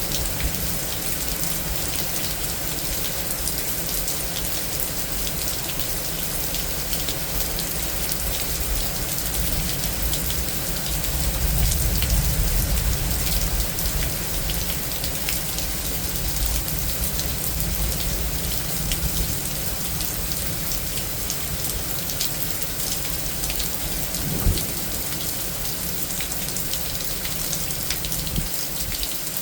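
Heavy thunderstorm rain falling steadily, with a low roll of thunder swelling about a third of the way in. A single sharp knock sounds near the end.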